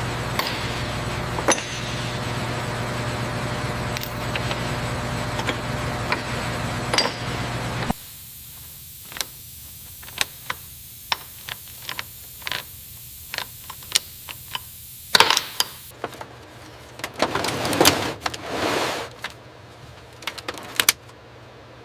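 Workshop sounds: a steady machine hum with a few clicks for about eight seconds, then a quieter stretch of many sharp metallic clicks and taps, with a few short scraping bursts near the end.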